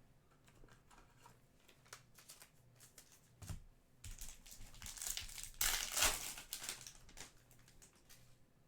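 Trading card pack wrapper crinkling and rustling as it is handled and torn open, with faint clicks of cards at first and the loudest rustle a little past halfway.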